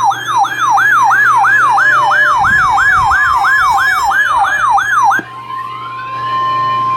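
Electronic siren alert yelping rapidly, about four sweeps a second, that cuts off about five seconds in. It gives way to a steady single-pitch alert tone near 1 kHz, the NOAA Weather Radio 1050 Hz warning alarm that comes before a severe thunderstorm warning.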